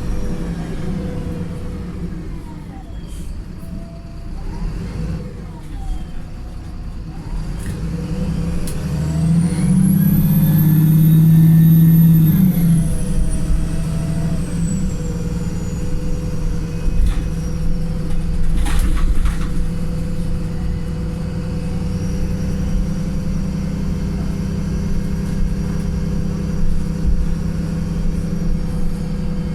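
Tired bus diesel engine heard from onboard, running with a thrashy note. About eight seconds in it works harder and gets louder, with a high whine that rises and then falls away, before settling back to a steady run. A few sharp rattles come through along the way.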